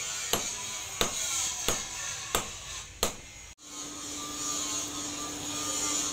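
Hand hammer striking a glowing blade of old file steel on an anvil, five blows about two-thirds of a second apart. After an abrupt change, a steady hum with hiss as the blade heats in a charcoal forge with forced air.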